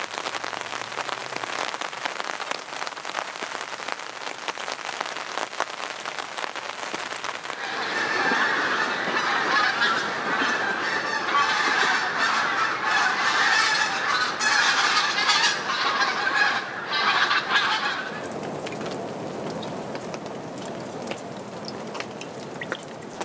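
Steady rain falling on a tarp and woodland. From about eight seconds in, a flock of geese honking loudly rises over it for around ten seconds, then stops, leaving the rain.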